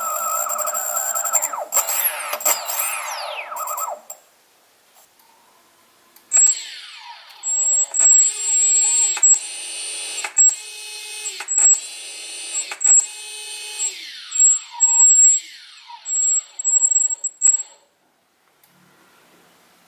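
Small brushless electric motor on an RC plane, driven by an Emax BLHeli 40A ESC set to bidirectional (reversible) mode, whining as the throttle stick moves it up and down in speed. After a short pause it makes a series of short whining runs, several ending in a falling spin-down.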